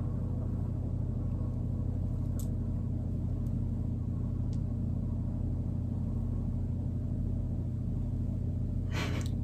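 Steady low hum with no speech, with a short breathy sound near the end.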